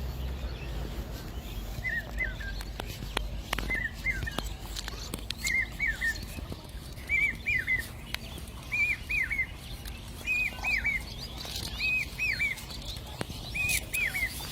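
A bird calling over and over: a short group of two or three quick falling chirps, about every second and a half to two seconds, eight times in all.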